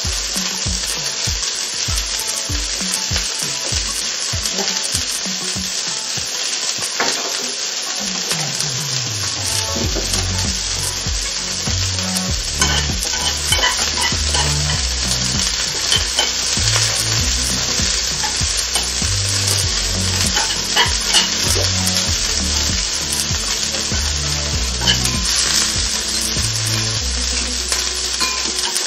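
Broccoli and beef sizzling steadily in hot oil in a nonstick frying pan while being stir-fried with chopsticks, with light scattered clicks of the chopsticks against the pan.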